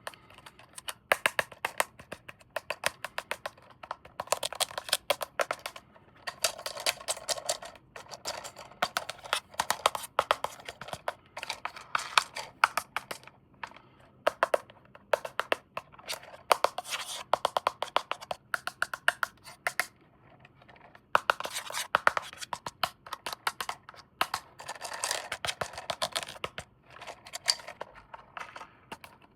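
Hands handling plastic toys and their packaging: rapid clicks and taps, with spells of crinkling and rustling and a brief pause about twenty seconds in.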